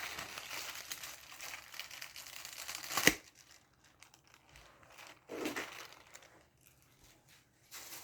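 Plastic film crinkling and tearing as it is peeled off a microwaved frozen dinner tray, ending in a sharp snap about three seconds in; a few quieter rustles follow.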